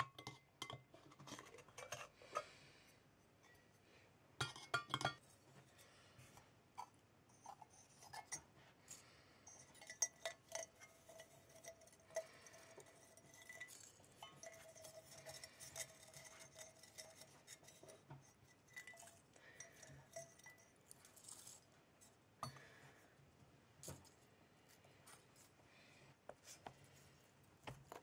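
Faint clinks, taps and knocks of small metal tins, their pierced lids and sticks of charcoal being handled and set down, scattered irregularly, some of them ringing briefly.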